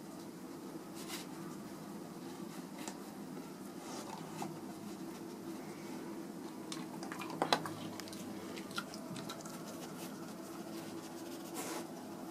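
Dog sniffing and nosing through a braided fleece treat-search toy: soft rustling and scratching of fleece with scattered short sniffs and clicks, the sharpest click about seven and a half seconds in, over a steady low hum.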